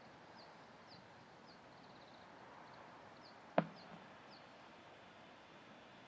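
Faint background hiss with a small bird giving short, falling chirps about every half second and a brief trill near two seconds in. A single sharp knock about three and a half seconds in is the loudest sound.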